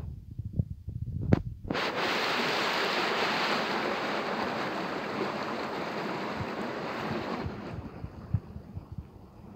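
A single sharp knock about a second in, then a steady rush of flowing stream water that starts abruptly and fades out a couple of seconds before the end.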